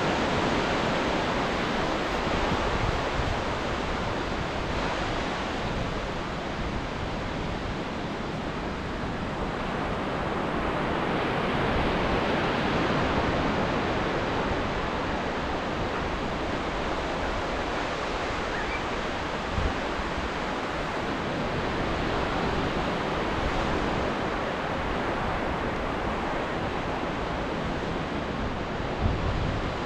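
Indian Ocean surf: waves breaking and washing up the shore in a continuous rush that swells and eases, growing louder a little before the middle.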